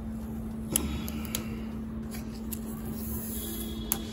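Clear protective plastic film being peeled off an iMac's edge by hand, with a few sharp crackles and clicks and a short hiss of film tearing away, over a steady low hum.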